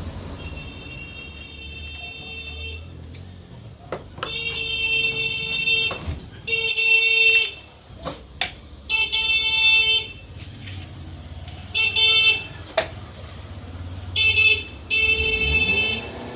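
A series of steady pitched honking tones, each one to two seconds long and starting and stopping abruptly, repeated about six times, with a few sharp knocks in between.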